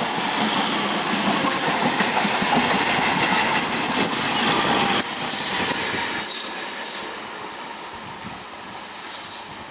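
EMU local train coaches passing close by, wheels clattering and rumbling over the rail joints. About halfway through the sound drops away abruptly, leaving a quieter train in the distance with a few short high-pitched squeals of wheels on the curve.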